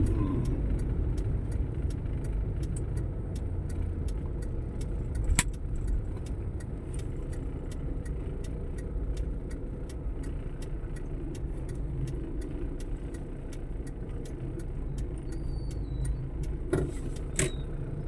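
Steady low rumble of vehicle engines in road traffic, with a few sharp clicks: one about five seconds in and two near the end.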